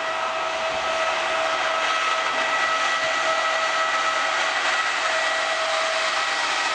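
A Trenitalia E.464 electric locomotive hauling double-deck coaches passes close by at speed. It makes a steady rushing noise with a high whine of several steady tones over it, and grows a little louder in the first second.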